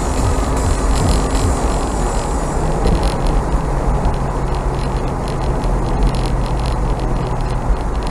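Mazda MX-5 engine running at fairly steady revs while driving, with road and wind noise.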